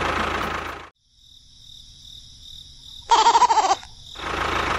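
Background music cuts off about a second in. After it comes a quiet nature ambience of steady high insect-like chirring, with one short, loud, wavering animal call about three seconds in.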